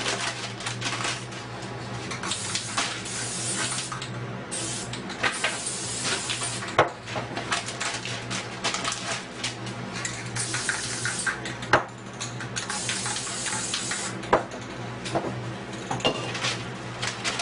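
Aerosol spray-paint cans hissing in repeated bursts of a second or two, with sharp knocks and clatter between the bursts as cans and tools are handled on the table.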